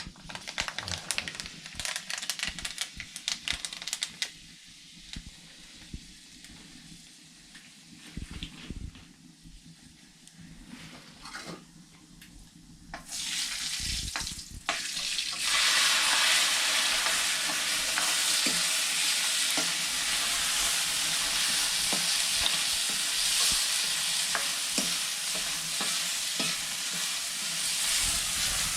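Potato curry cooking in a pan. Stirring scrapes and knocks come first, then about halfway a loud, steady sizzle of frying starts and keeps on.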